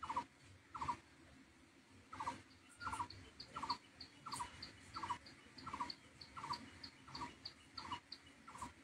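A bird calling over and over in the background: a short rattled note about every two-thirds of a second, joined by quicker thin high chirps from about a third of the way in. Intermittent soft rustles and taps of paper tickets being handled are the loudest sounds.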